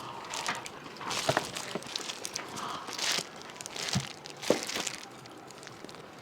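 Irregular crinkling, rustling and small knocks from handling food and its plastic packaging at a table.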